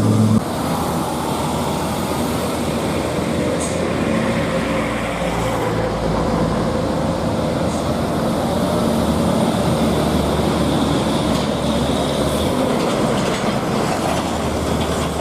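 Heavy truck running close by: a loud, steady, dense mechanical rumble with a faint wavering whine in the middle.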